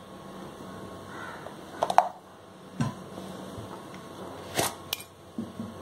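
A few sharp clinks and taps of a spoon and steel kitchen containers being handled while salt is spooned into a bowl of flour: one about two seconds in, another near three seconds, and two close together about a second and a half later.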